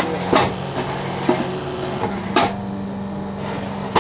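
The electric motor of a fly ash brick press hums steadily, with four sharp knocks at uneven intervals.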